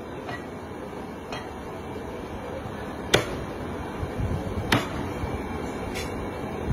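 A Chinese cleaver chopping through roasted meat on a thick round wooden chopping block: about five sharp, separate chops a second or more apart, the loudest about three seconds in.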